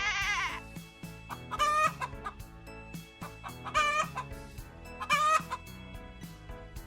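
Chicken calling three times, short pitched calls about two seconds apart, over background music with a steady beat. A long bleat ends just after the start.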